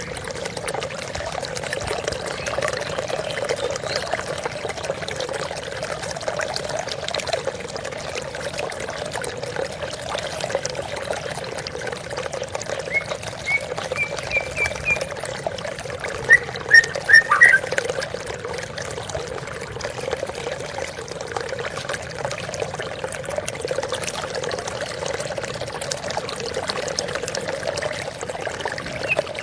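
Steady flowing water, an even rush like a small stream or fountain. A bird chirps in two short runs about halfway through.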